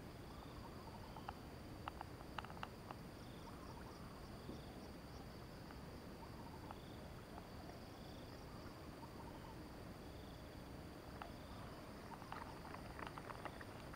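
Faint steady high-pitched insect drone with short chirps repeating every second or two. A few faint clicks come about two seconds in and again near the end.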